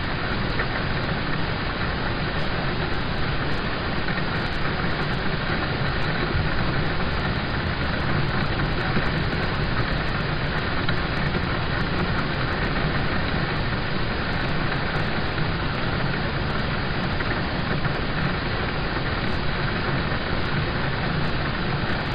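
Steady rain falling on a car's roof and windows, heard from inside the car: an even, unbroken wash of patter with a low rumble underneath.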